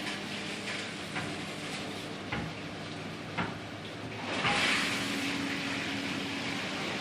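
Chefquip commercial dishwasher running: a steady pump hum under water spraying and splashing inside the cabinet, with a few light knocks and a louder surge of spray about four and a half seconds in.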